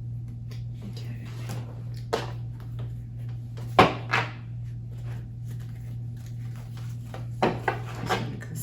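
Tarot cards being handled: scattered short snaps and taps of cards, sharpest about four seconds in and again near the end, over a steady low hum.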